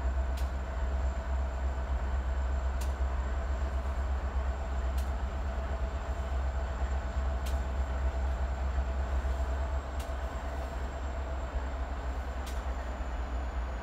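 BNSF diesel freight locomotives approaching under power. There is a steady low rumble with a steady engine whine above it, and a faint click about every two and a half seconds.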